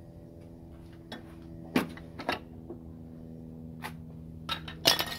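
A scattered series of short, sharp clicks and knocks, about seven, the loudest near the end, over a steady low hum.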